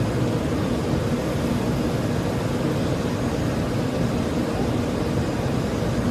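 Steady, unchanging rumble of airflow and jet engines heard inside an airliner cockpit during the low descent to landing, heaviest in the low range.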